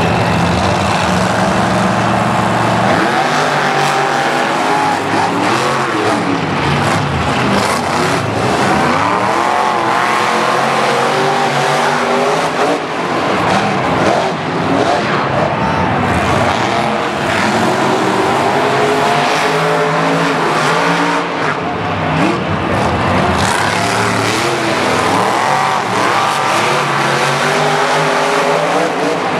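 Two monster trucks racing, their supercharged big-block V8 engines revving hard, repeatedly rising and falling in pitch as they accelerate and back off.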